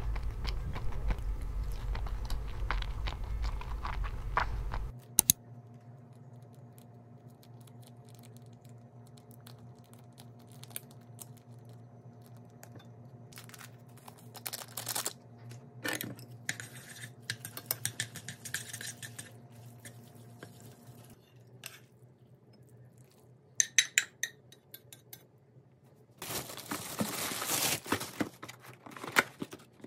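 Eating at a table: scattered clinks of utensils and dishes, with chewing and crunching. A steady low hum in the first few seconds cuts off suddenly, and a louder stretch of rustling noise comes near the end.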